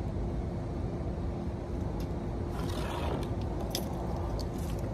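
Steady low outdoor rumble with a constant hum underneath. About two and a half seconds in, a short scrape and a few light clicks as a person sits down on a plastic patio chair on concrete.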